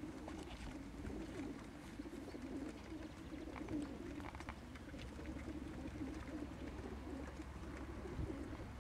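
Many racing pigeons cooing at once, their overlapping coos forming a steady, continuous chorus.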